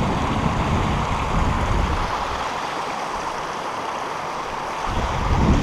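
Meltwater stream running out from under a snow patch, a steady rushing of water, with wind buffeting the microphone in gusts that ease off about halfway through and pick up again near the end.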